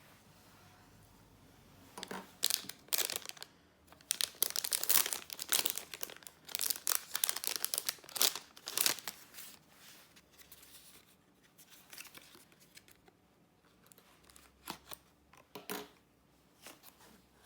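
Crinkly packaging being torn open and crumpled by hand: a dense run of tearing and crinkling that starts about two seconds in and stops about halfway through. After it come a few scattered light rustles and clicks.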